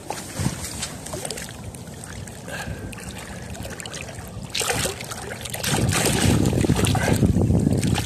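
Water splashing and sloshing, growing much louder about two-thirds of the way through.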